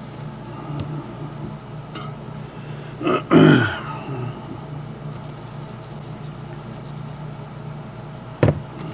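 A short, low vocal sound from a person, falling in pitch over about half a second, about three seconds in, over a steady low hum. A sharp click near the end.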